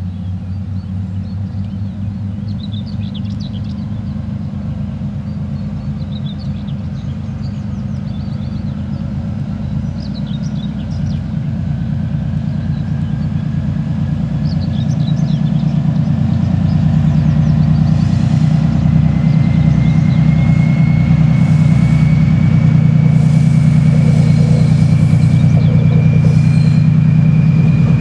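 Soviet-built 2TE10U twin-section diesel locomotive, with 10D100 two-stroke opposed-piston diesel engines, approaching under load with a freight train. Its deep engine drone grows steadily louder, and a high whine rises slowly in pitch over the second half.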